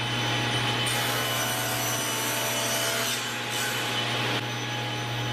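Table saw running steadily with a constant motor hum, its blade cutting a tapered wedge from a small block of wood pushed through a sled.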